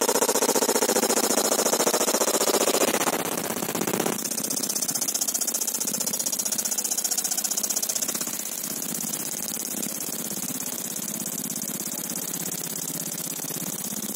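Fiber laser marking steel: a rapid, harsh buzzing crackle as the pulsed beam ablates the surface, over a steady high hiss. It is loudest for the first three seconds or so, then gets quieter about four seconds in and again about eight seconds in.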